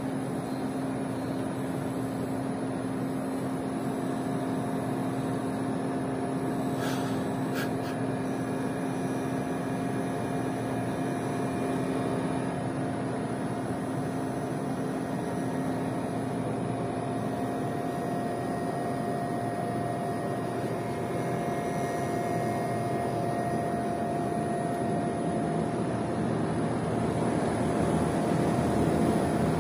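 Outdoor unit of a Gree Soyal 12,000 BTU split air conditioner running in heating mode: a steady hum and fan whir with two held tones, growing a little louder near the end. Two faint clicks about seven seconds in.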